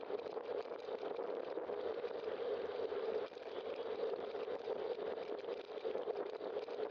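Steady rushing wind and road noise from a bicycle moving along a city street, picked up by a bike-mounted camera's microphone.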